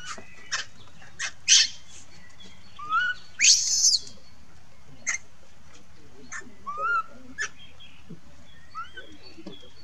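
Baby macaque crying: a string of short, squeaky calls that rise in pitch, with a louder, harsher scream about three and a half seconds in.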